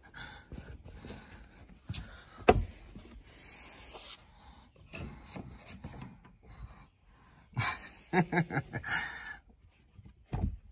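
Hands-on work noise: rubbing and scuffing with a few sharp knocks, the loudest about two and a half seconds in, followed by a short hissy stretch.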